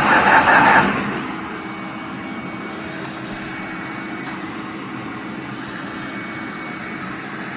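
Vacuum cleaner running steadily, its nozzle sucking at leaves stuck in a lawnmower's dipstick tube. The leaves stay stuck. It is louder for about the first second, then settles to an even drone with a steady hum.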